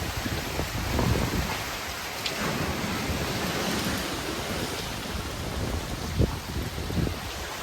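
Hurricane rain and wind: a dense, steady hiss of driving rain with low rumbling swells, and a brief thump about six seconds in.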